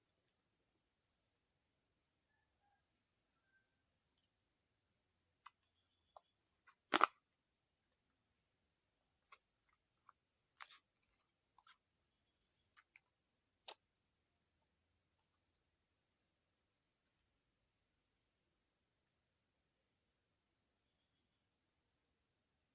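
Steady, high-pitched drone of insects calling in the background, with one sharp click about seven seconds in and a few fainter ticks around it.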